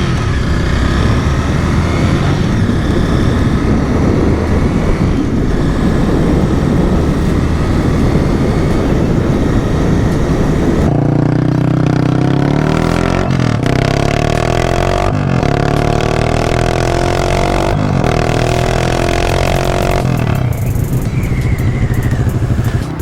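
Honda Rebel 300's single-cylinder engine running loud through an open pipe, its stock muffler removed. Its pitch climbs in the first seconds, and in the second half it changes pitch in steps, with short breaks every couple of seconds.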